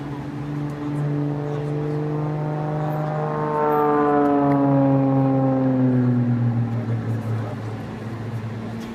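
Aerobatic race plane's piston engine and propeller droning overhead. The tone slides down in pitch over a few seconds as the plane passes, and it is loudest near the middle.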